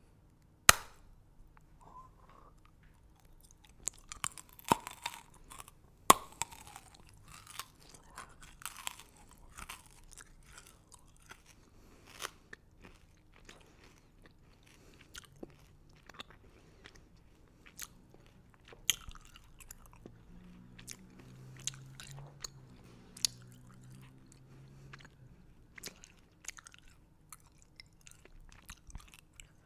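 Close-miked biting and chewing of crunchy candy: sharp crunches, the loudest about a second in and about six seconds in, denser crunching between about four and ten seconds, then scattered crunches and chewing.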